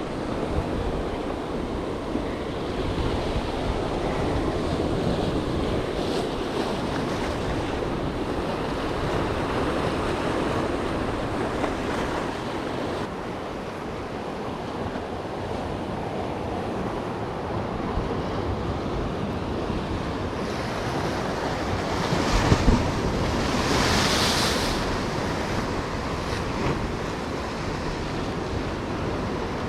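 Rough ocean surf washing against shoreline rocks, with wind buffeting the microphone. A bigger wave surges in about three quarters of the way through, with a louder hiss of white water.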